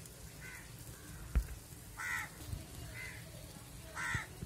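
A bird giving four short calls, roughly a second apart, with two sharp clicks, one about one and a half seconds in and one near the end.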